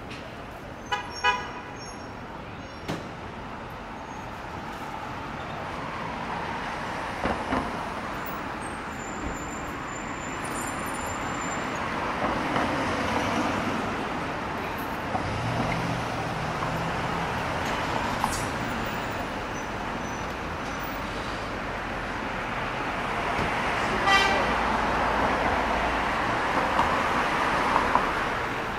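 Busy city street traffic: a steady wash of passing cars and engines, with a car horn honking briefly about a second in and again near the end.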